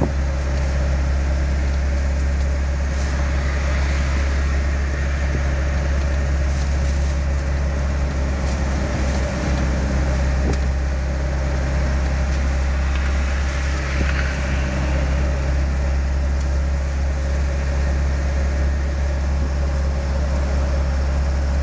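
Car driving along, a steady low engine and road drone with no change in pace.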